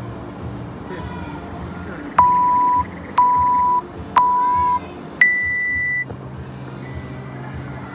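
Workout interval timer counting down to the start: three short beeps a second apart, then one longer, higher-pitched beep that marks the start.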